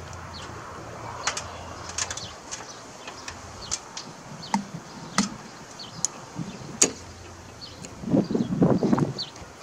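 Vise-grip locking pliers working on a steel roof-rack stud: scattered metal clicks, one sharp click about two-thirds of the way in, then about a second of rough grating as the stud is twisted in the grips. Birds chirp in the background.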